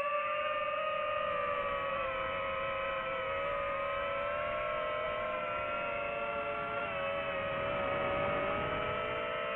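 DJI FPV drone's motors and propellers whining steadily, several close pitches drifting slowly apart and together in flight.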